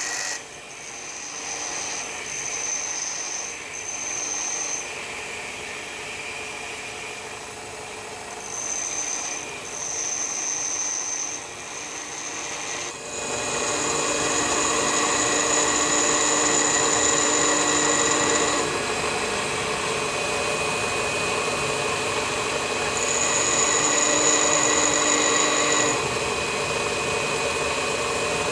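Bench grinder grinding an HSS lathe tool bit, shaping its front clearance angle. It starts as a series of short touches against the grinding wheel, each a second or two long. These are followed by two longer grinds of about five and three seconds, which are louder and carry a high, steady whine.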